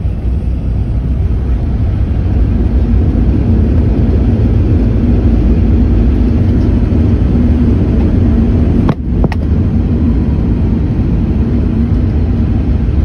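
Jet airliner cabin noise during the landing rollout just after touchdown: a loud, steady low rumble of the engines and the wheels on the runway, with a faint steady hum. A brief sharp break cuts in about nine seconds in.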